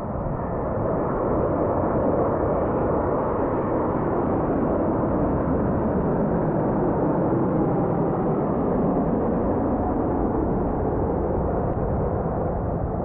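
Aircraft engines roaring: a loud, steady low rumble that swells a little about a second in and then holds.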